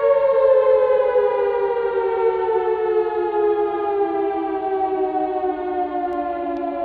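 Air-raid siren winding down, its two slightly clashing tones sliding slowly and steadily lower in pitch.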